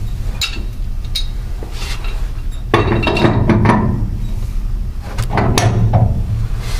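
Steel pipe wrenches clinking and knocking against threaded metal pipe fittings as they are set onto a filter cartridge and its elbow, several separate knocks with a cluster about three seconds in, over a steady low hum.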